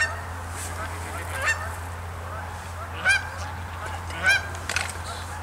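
A flock of Canada geese honking: many overlapping calls, with four louder honks spaced about a second and a half apart.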